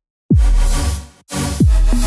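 Electronic dance music with heavy bass. A moment of silence at the start, then a deep bass hit that falls in pitch, a short break, and a second such hit near the end.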